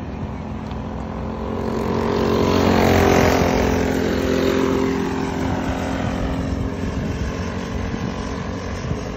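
Small-engine dirt racing kart running past on the oval. Its engine drone swells to a peak about three seconds in, then drops in pitch and fades as it moves off down the straight.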